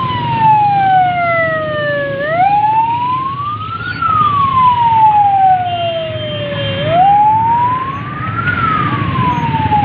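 Rescue 1122 ambulance siren wailing close by, its pitch climbing for about a second and a half and then sinking for about three seconds, a full rise-and-fall roughly every four and a half seconds, over a low rumble of jammed traffic.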